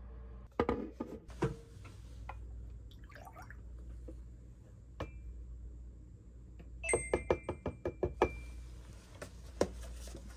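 A ceramic cup set down on a table with a few knocks, then milk poured from a carton into the cup, glugging in a quick run of pulses for about a second and a half.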